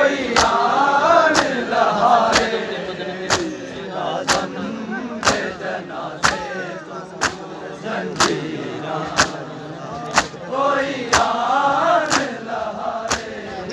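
Matam: a crowd of men striking their bare chests with their hands in unison, one sharp slap about every second, while a group of men chant a noha lament between the strikes.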